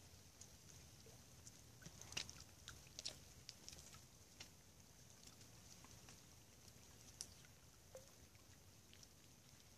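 Falling wet snow and drips in snow-laden woods: faint, irregular pattering ticks, thickest about two to four seconds in, over a quiet steady hiss.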